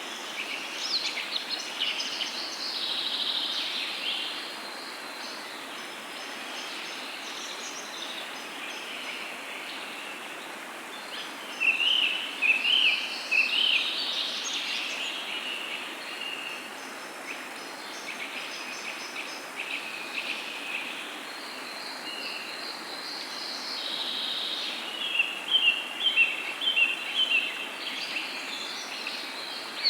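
Several songbirds singing and chirping over a steady background hiss, with louder calls about twelve seconds in and a run of short repeated notes near the end.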